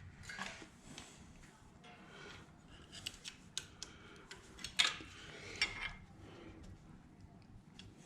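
Faint metal clicks and scrapes of an Allen key working at the clamp bolt of a motorcycle gear change lever, with a sharper clink about five seconds in.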